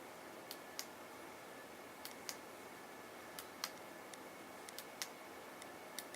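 Power button on a Cinedeck 3D recorder being pressed over and over, giving a pair of sharp clicks about every second and a half, five times; the button clicks but the unit does not power up.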